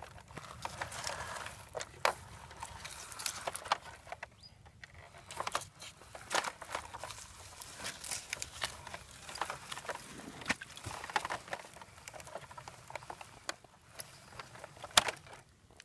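Bruder toy tractor pushed by hand through mud and shallow water: irregular splashes, squelches and sharp clicks from its tyres and body, with one loud knock near the end.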